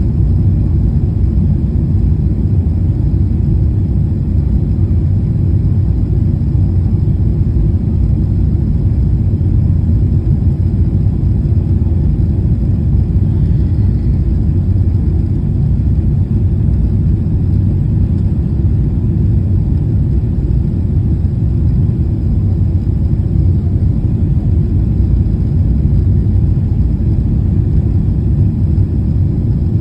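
Steady low rumble inside a jet airliner's cabin on final approach: engine noise and air rushing past the wing with its flaps extended, unchanging throughout.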